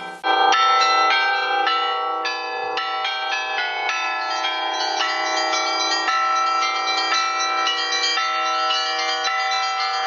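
A Russian Orthodox bell ringer playing a frame of church bells by their clapper ropes: several bells of different pitches struck in a quick, rhythmic peal, each stroke ringing on under the next.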